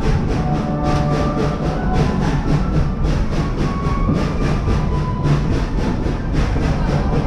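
Steam train running, heard from aboard: a fast, even rhythm of exhaust chuffs, about four to five a second, over the steady low rumble of the cars on the rails.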